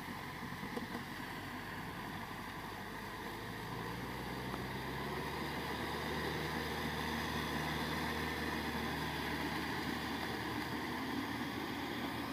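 Kubota M6040SU tractor's diesel engine running steadily under load as it drives a rear rotary tiller through wet paddy mud. About four seconds in, the engine note shifts and grows a little louder.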